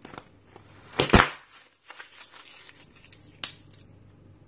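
A cluster of thin, translucent slime bubbles squashed between two hands: one loud crackling burst about a second in, then smaller pops and crackles, with another sharp pop about three and a half seconds in.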